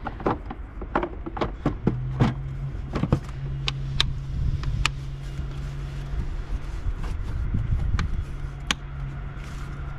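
A steady low hum with scattered sharp clicks and knocks. The hum starts about two seconds in and breaks off briefly around the seventh second.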